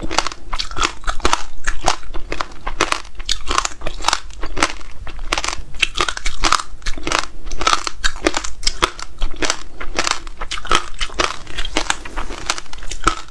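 A person chewing crunchy seeds right at a clip-on microphone: a steady run of sharp, crackling crunches, several a second.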